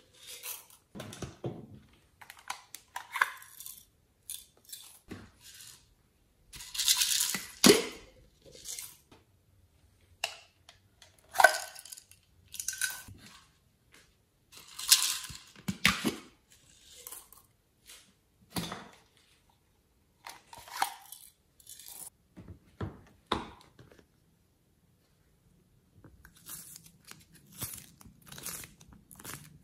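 Close-up handling of plastic containers and slime: a series of separate crinkling, tearing and clicking noises with short pauses. Near the end, quick crackling as soft clay is peeled out of a plastic mould.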